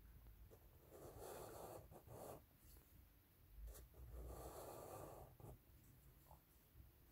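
Faint rubbing of a felt-tip marker drawing on paper, with two longer soft swells of sound, about a second in and again about four seconds in.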